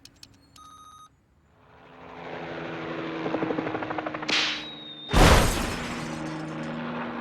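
Cartoon sound effects: a short electronic beep, then a swelling noisy build-up with rapid rattling and a high whistle, cut by a sudden loud blast about five seconds in that trails off into a sustained rumbling hum.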